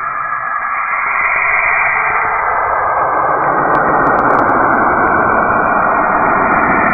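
Saturn's radio emissions from its magnetic field, converted into audio: a dense, rushing noise that swells louder and deeper over the first few seconds, then holds steady.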